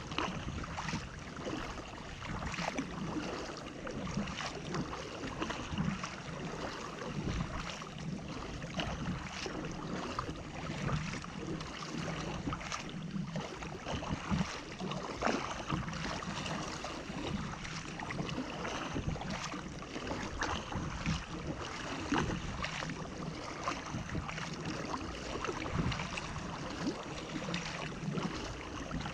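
Double-bladed paddle strokes on a sit-on-top kayak: repeated splashes as the blades dip in and pull through the sea, over water rushing along the hull.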